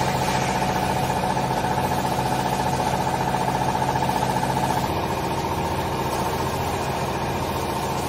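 Vertical hydraulic clothing baler's electric motor and hydraulic pump running with a steady hum; the hum's low tones change slightly about five seconds in.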